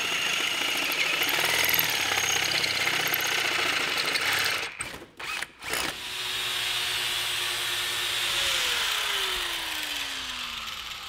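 Electric drill boring a hole through a steel bar, steady grinding whir of the bit cutting metal. It stops briefly a little under halfway through and starts again, with a falling whine near the end.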